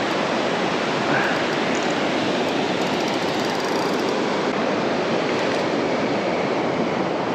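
Sea surf on the shore, a steady rush of noise without a break.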